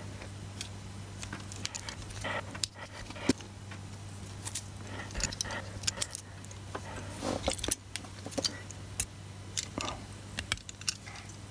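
Handling noise from small parts: scattered light clicks, taps and rattles as hands work a plastic SG90 micro servo and its wires, with one sharper click about three seconds in. A steady low hum runs underneath.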